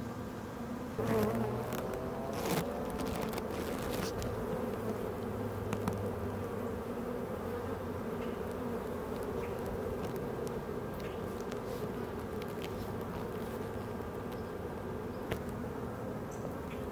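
Dense, steady buzzing of many honeybees swarming over an opened hive, the colony stirred up by the hive being taken apart. About one to three seconds in come a few sharp clicks and knocks from the metal hive tool prying propolis-stuck frames apart.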